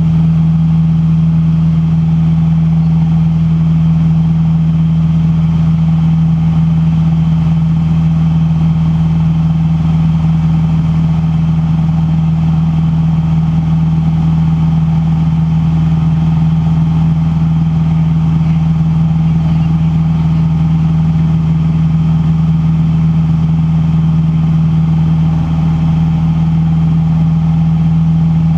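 Van's RV-8 light aircraft's engine and propeller droning steadily in flight, heard from inside the cockpit as one strong, unchanging low hum.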